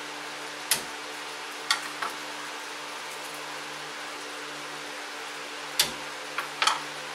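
A kitchen knife knocking sharply on a cutting board as garlic cloves are smashed and cut: a few knocks about a second in and a cluster near the end. A steady low hum runs underneath.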